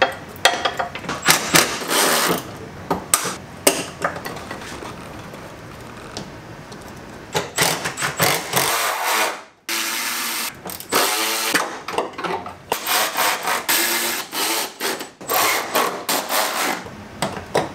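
Milwaukee cordless power tool running in short bursts as it drives bolts, among many sharp clicks and knocks of tools and metal parts being handled.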